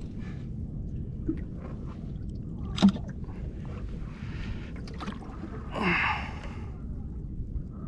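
Steady low rumble of wind and water on a small boat at sea, with a sharp knock about three seconds in and a short breathy rush near six seconds.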